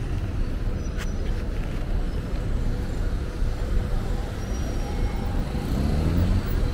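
City street traffic: cars passing with a steady low rumble, and one vehicle's engine rising in pitch as it accelerates near the end. A single sharp click about a second in.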